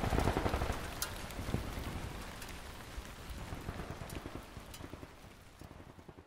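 Steady rain falling, with scattered sharper drop hits, fading out gradually and stopping near the end.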